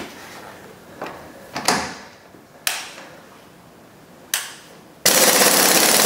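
A few separate sharp clicks and knocks, then about five seconds in a pneumatic impact wrench starts hammering loudly on the truck's 35 mm front hub nut, breaking it loose while the wheel is still on the ground.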